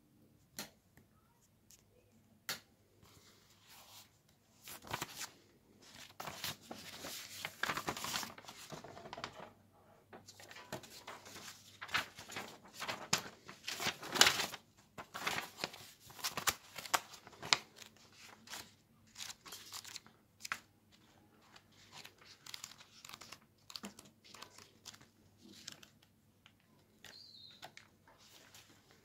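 Paper pages of a thin instruction booklet rustling and flapping as it is handled and leafed through, in irregular bursts that are busiest through the middle.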